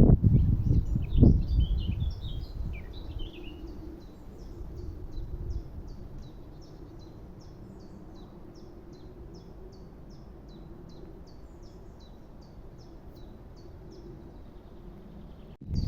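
A small songbird singing: a brief burst of warbling notes, then a long, even run of short high chirps, about two or three a second. A low rumble fills the first two seconds.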